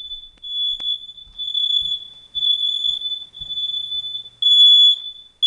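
Several home smoke alarms sounding during a test: a shrill, high-pitched beep repeating about once a second. The beeps overlap into a nearly unbroken tone in the middle, and the nearest alarm grows louder near the end.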